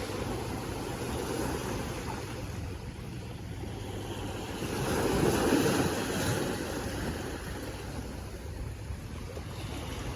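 Sea waves washing in, one wave swelling louder about halfway through, over a faint low steady hum.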